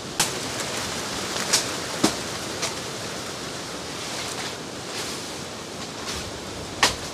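Steady rushing outdoor noise with a few sharp clicks scattered through it, about five in all.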